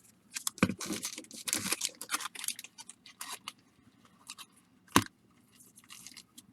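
Baseball card packs being handled and sorted into piles, their wrappers crinkling and rustling in irregular bursts, with one sharp tap about five seconds in.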